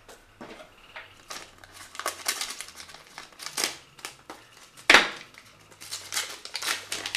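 Paper envelope being torn open and the letter inside rustled and unfolded by hand: a string of crinkling and ripping sounds, with one louder rip about five seconds in.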